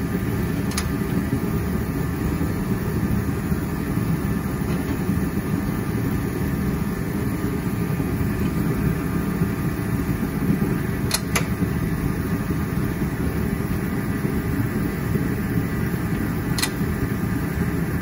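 Steady low machine hum, like a running fan, with a few faint light clicks: one about a second in, two close together around the middle and one near the end.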